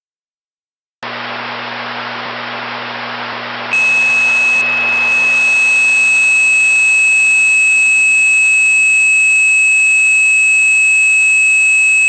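Static hiss with a low hum starts about a second in; about four seconds in, a loud, steady, high-pitched single tone begins and holds. This is the attention signal of a mock Emergency Alert System broadcast.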